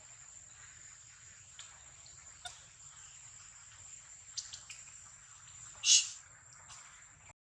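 A baby monkey eating watermelon: scattered small wet clicks and smacks, with one short, loud, sharp sound about six seconds in. A steady thin high whine runs underneath.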